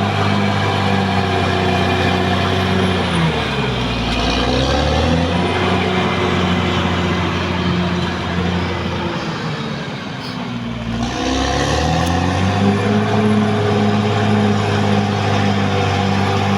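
Caterpillar D6R XL bulldozer's diesel engine running steadily. Its pitch sags and recovers twice, about three seconds in and again near the middle, as the engine is pulled down under load.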